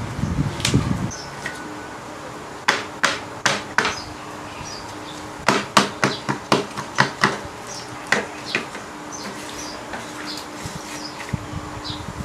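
Sharp knocks of the printer's plastic ink tank unit against a wooden tabletop while it is handled and wiped with tissue. The knocks come in quick runs: about five around three seconds in, a longer run of about eight a couple of seconds later, then two more.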